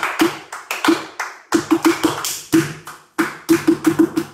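Flamenco palmas and zapateado: sharp hand claps and heeled flamenco shoes striking a wooden floor in a bulerías rhythm, with a quick run of strikes about three and a half seconds in.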